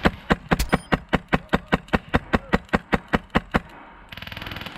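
Airsoft gun firing a rapid, even string of shots, about seven a second for some three and a half seconds, then stopping; a fainter, faster rattle follows near the end.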